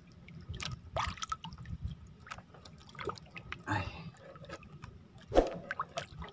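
Water splashing and dripping at a small wooden outrigger canoe as a wet handline is pulled in by hand, with scattered small knocks and one sharper knock about five seconds in.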